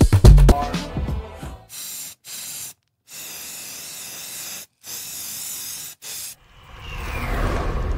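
Electronic background music ends in the first second, followed by a TV-static sound effect: several bursts of white-noise hiss that cut in and out abruptly with short silences between them. Near the end a broad whoosh of noise swells up and fades.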